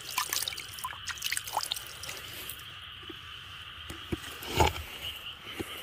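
Water dripping and splashing in small bursts during the first second and a half, then a louder splash about four and a half seconds in, over a steady high-pitched chorus of insects.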